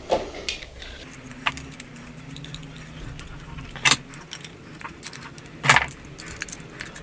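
Black iron pipe fittings clinking and knocking against each other and the workbench as they are handled and set down: a few separate metallic clinks, the loudest about four and six seconds in.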